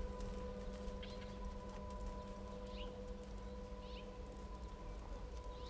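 A loose horse's hooves on a soft sand arena as it trots and canters, over a low wind rumble. A small bird chirps briefly four times.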